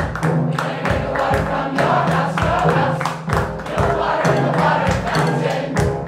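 Large choir singing in full voice over a steady beat from a drum kit and percussion, with a bowed cello holding low notes underneath.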